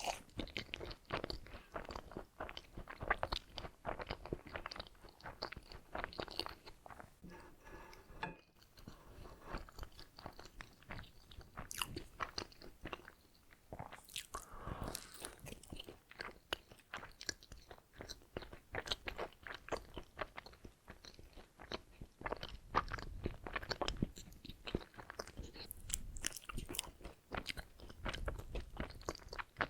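Close-miked chewing and biting of donuts: many small wet clicks and crunches from the mouth, going on without a break except for a short lull.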